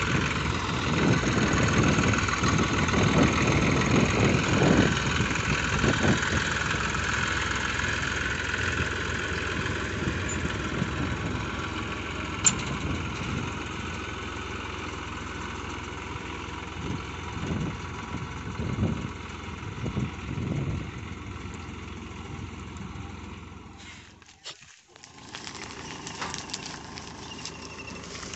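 Eicher 333 tractor's diesel engine running as the tractor pulls away with a loaded trolley, fading over about twenty seconds, with a few low thumps along the way. Near the end the sound breaks off and a quieter steady machine sound follows.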